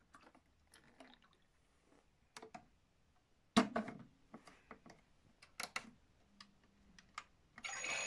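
Plastic clicks and knocks as a toy Miele washing machine's detergent drawer and push-buttons are handled. Near the end a loud, steady rushing, water-like noise starts up from the toy.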